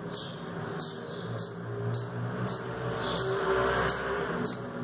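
Cricket stridulating, its wings rubbing against each other: short high-pitched chirps repeating evenly, about one every 0.6 seconds.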